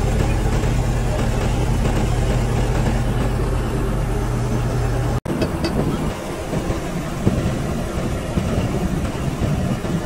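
An engine running steadily at idle, cutting off abruptly about five seconds in. Rougher, uneven yard noise follows, with a sharp knock about two seconds later.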